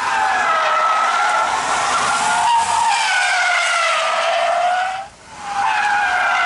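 Car tyres squealing as the car drifts sideways through a bend, a loud wavering screech that breaks off briefly about five seconds in and then starts again.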